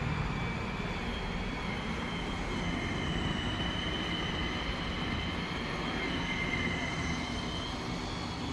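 Steady mechanical hum and noise with a high, slightly wavering whine.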